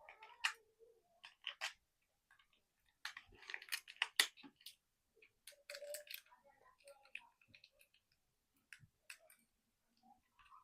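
Chocolate wrappers being handled and unwrapped: crinkling and small sharp clicks, busiest in a cluster about three to four and a half seconds in, then sparse ticks.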